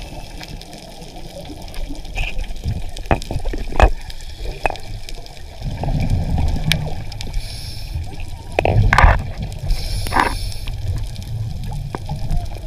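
Underwater gurgling and bubbling from a diver in the water, with scattered sharp clicks and knocks and a low rumble. Two louder bubbling rushes come about halfway through and again a couple of seconds later.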